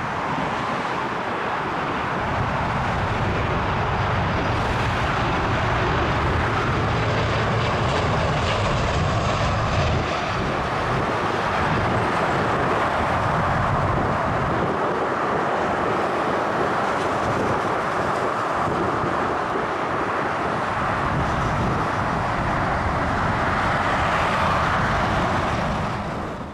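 Jet airliner engine noise: a loud, steady rush with a low rumble underneath, which drops away near the end.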